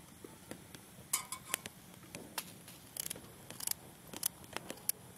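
Knife slicing crisp celery in the hand: a string of short, crisp cuts at an uneven pace, a few of them sharper and louder.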